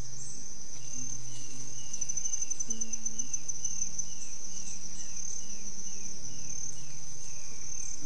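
Forest insects trilling steadily at a high pitch, with a short falling chirp repeated about twice a second. Soft low sustained notes, like background music, sit underneath.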